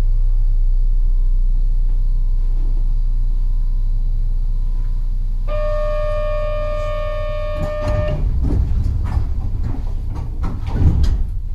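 A train standing at a station platform, running with a steady low hum. About five seconds in, a steady electronic buzzer tone sounds for about two and a half seconds, followed by scattered knocks and clatter.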